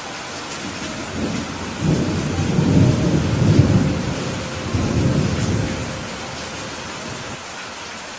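Heavy rain falling steadily, with a roll of thunder that builds about a second in, rumbles deep and loud for several seconds, then dies away.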